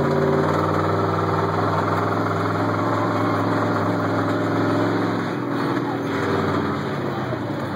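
Engine of the Grave Digger monster truck ride vehicle running steadily under way, a low, even engine note that eases off and turns rougher about five seconds in.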